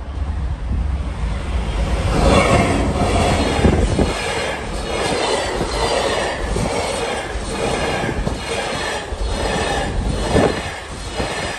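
Class 66 diesel freight train, locomotive 66726, running past a level crossing. The rumble grows sharply louder about two seconds in, then the container wagons roll by with a steady clatter of wheels over rail joints, about three beats every two seconds.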